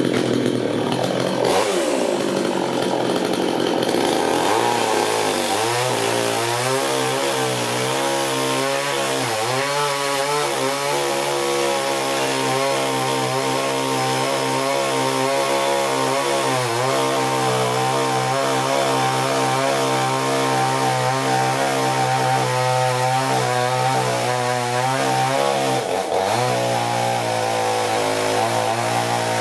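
Petrol chainsaw running at high revs while cutting through a log. Its engine note holds steady and dips briefly now and then as the chain bites into the wood.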